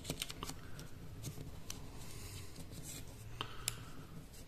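A euro banknote crinkling and rustling as fingers fold it and tuck it under the origami collar, with small sharp paper crackles, a few at the start and two near the end.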